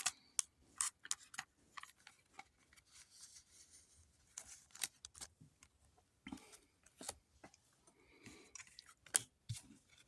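Pokémon trading cards being handled and flipped through by hand: faint, irregular light clicks and brief rustles of card against card.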